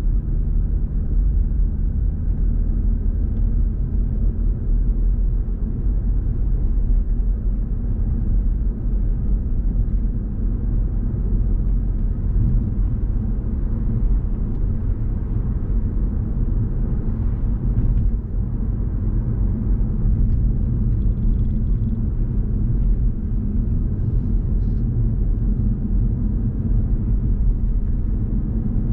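Car driving at a steady pace: an even, low rumble of road and engine noise.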